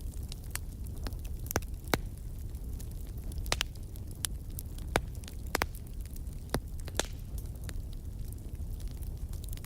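Wood fire burning in a fireplace, with irregular sharp crackles and pops over a low steady rumble of the flames.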